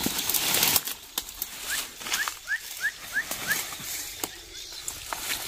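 Dry grass and leaves rustling and crackling as someone pushes through undergrowth, loudest in the first second, with scattered snaps. In the middle a bird calls a run of short rising chirps, about three a second.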